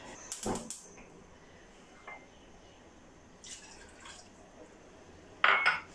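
A little liquid poured from a cup into a non-stick frying pan, with a few faint taps. Two sharp knocks near the end are the loudest sounds.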